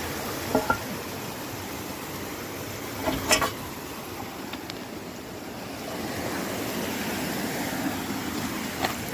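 Creek water running steadily, with two short knocks, one about half a second in and a louder one about three seconds in.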